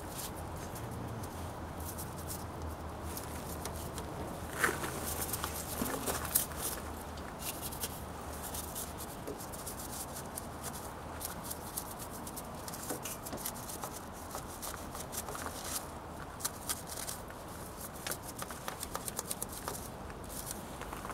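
Brush scrubbing the metal frame of a Honda trike: irregular scratchy strokes and light knocks, settling near the end into a steady rhythm of about three or four strokes a second.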